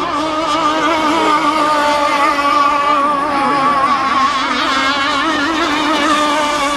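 Several radio-controlled racing boats running laps together, their motors giving a steady high-pitched whine in several overlapping tones that waver slightly in pitch.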